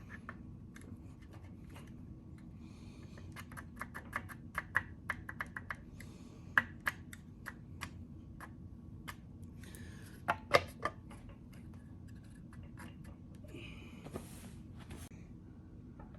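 Engine valve lifters clicking and tapping as they are fitted into their lifter trays: a run of quick, sharp metallic clicks, a few louder taps about six and ten seconds in, and short scraping rustles of parts being handled.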